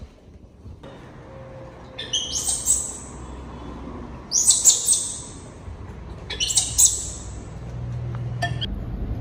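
Baby monkey squealing in three shrill, high-pitched bursts, each under a second long.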